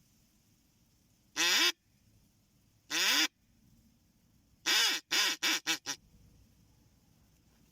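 Loud duck quacking: two single drawn-out quacks a second and a half apart, then a run of five quacks that get shorter and quicker.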